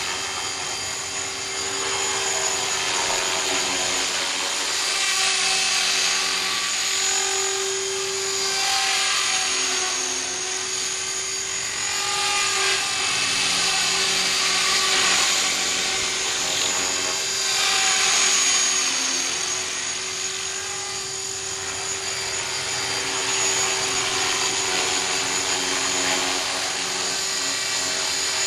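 Align T-REX 450SE v2 electric RC helicopter flying in a low hover: steady brushless-motor whine and rotor buzz. The main tone wavers a little in pitch, and the sound swells and eases every few seconds as the helicopter moves.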